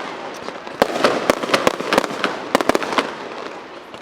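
Fireworks display: a fast run of sharp bangs and crackling bursts over a continuous rumbling haze, starting about a second in and thinning out near the end.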